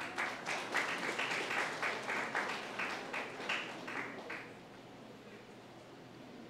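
Audience applauding with a quick run of hand claps that dies away after about four and a half seconds.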